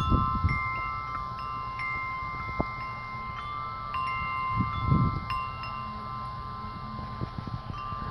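Wind chimes ringing: several notes struck at uneven intervals, each one ringing on for seconds. Two low rumbles come near the start and about five seconds in.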